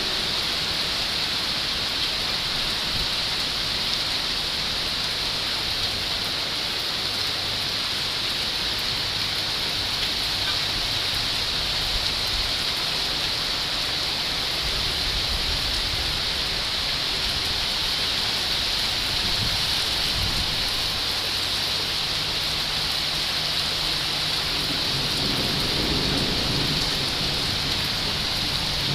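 Heavy rain falling steadily, a dense even hiss of drops on surfaces. A low rumble swells briefly near the end.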